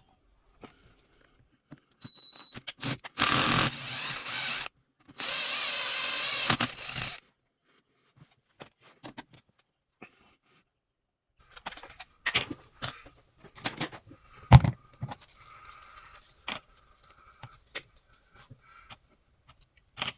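A power tool runs in two short bursts, the first about a second and a half, the second about two seconds. After a pause come scattered clicks and taps of tools and parts being handled, with one louder knock among them.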